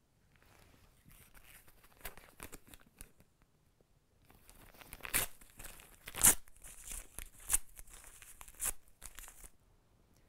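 Paper being torn by hand into small pieces: a run of crinkling and several sharp rips, the loudest about six seconds in.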